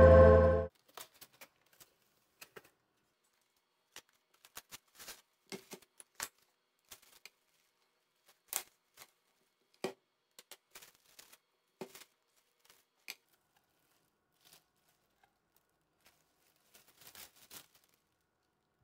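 Synth intro music cuts off under a second in. Then there are scattered short crackles and light clicks of clear plastic wrapping being handled and pulled off a glass bathroom scale, with a cluster near the end.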